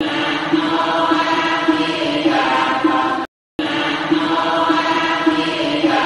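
Buddhist chanting: a steady, droning chant with a slow pulse, which cuts out to silence for a moment just past three seconds in and then starts again.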